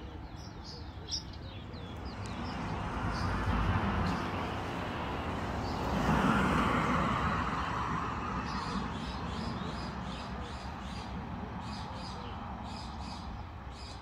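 Small birds chirping in short, high notes, over a rushing background noise that swells and fades, loudest around the middle.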